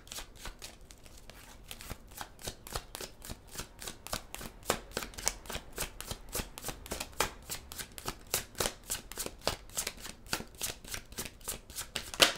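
A deck of tarot cards being shuffled by hand, the cards slapping and clicking against each other about four times a second, with a louder snap near the end.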